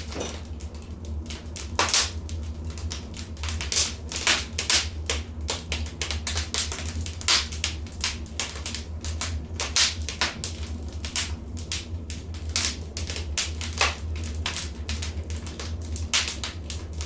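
Wood fire crackling in a fireplace: a continuous irregular scatter of small snaps with louder pops every second or two, over a steady low hum.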